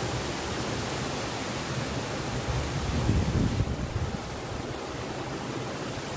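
Steady rush of a shallow stream running over rocks and a small cascade. A brief low rumble rises and falls between about two and a half and four seconds in.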